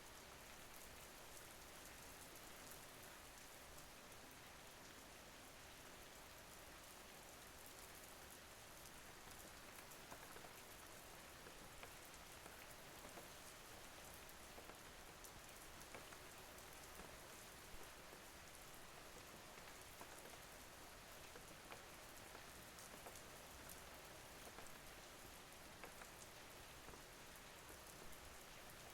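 Steady, quiet rainfall, with many small individual drops ticking.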